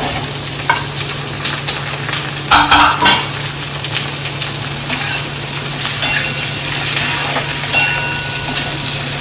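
Chopped capsicum and onion frying in hot ghee in a kadai, sizzling steadily from the moment they go in. They are stirred, with a few knocks of the spoon against the pan.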